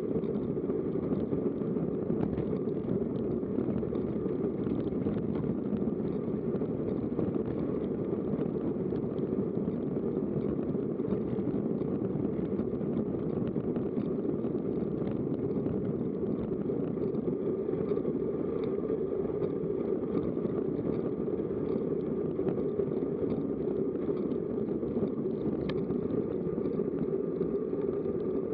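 Wind rushing over an action camera's microphone on a moving bicycle: a steady, even noise with no rhythm or tone.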